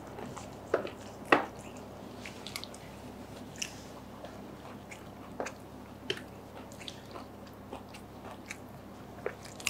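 Close-miked chewing and biting of samosas: scattered soft crunches and wet mouth clicks, the two loudest a little under and a little over a second in.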